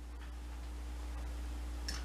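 Steady low hum of room tone with no distinct event, and a faint tick near the end.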